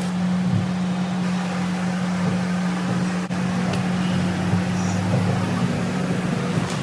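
A machine running steadily: an even low hum over a faint hiss, without change.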